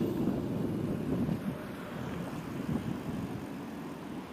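Wind rumbling on the microphone of a camera mounted on a moving bicycle, over the noise of city street traffic.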